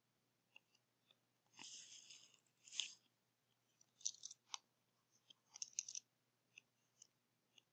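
Faint scratches and taps of a stylus writing on a tablet screen: a few short strokes, with near silence between them.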